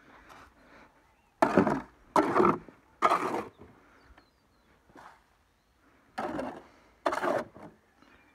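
Five sharp knocks on wood at uneven intervals, three close together in the first half and two more near the end.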